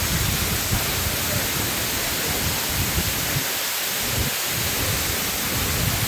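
Waterfall: a steady rush of falling and splashing water, loud enough to drown a speaking voice.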